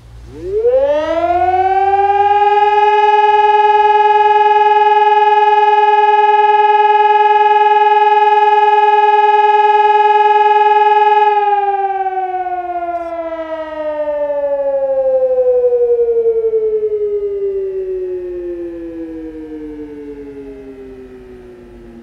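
Hörmann ECN 1200 electronic siren sounding one tone of the German "Feueralarm" fire-alarm signal. The tone rises to a steady pitch within about two seconds and holds for about nine seconds. It then slowly glides down in pitch and fades over the last ten seconds, its loudness swelling once on the way down.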